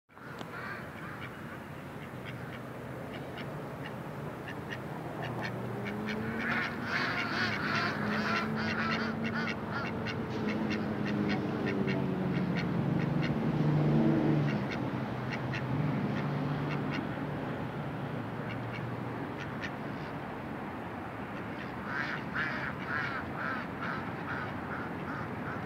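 Ducks quacking in rapid runs of short calls, a long stretch in the middle and another near the end. Under them a low hum swells and fades in the middle.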